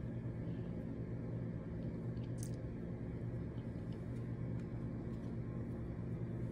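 Domestic tabby cat purring steadily, a low even rumble that goes on without a break. A brief light scratch comes about two and a half seconds in.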